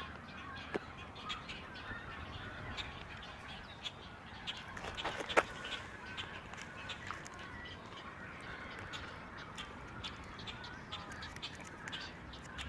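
Many nesting birds in a rookery colony calling and chattering, a dense run of short calls with one louder call about five seconds in.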